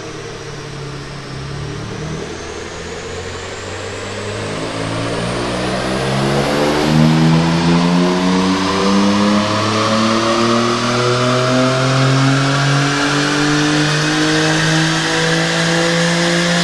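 BMW M2 G87's twin-turbo 3.0-litre straight-six, breathing through an Akrapovic slip-on exhaust, in a full-throttle dyno pull in fifth gear. The engine note rises steadily in pitch and grows louder as the revs climb to high rpm.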